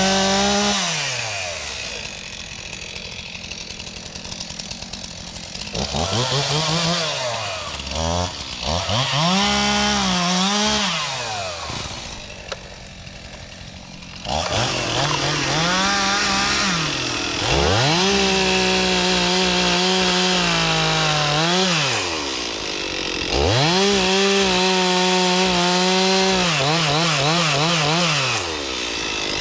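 Two-stroke chainsaw revved up to full throttle and let back down about six times, each rise holding a high steady whine for one to four seconds before falling away. Near the end the high note wavers.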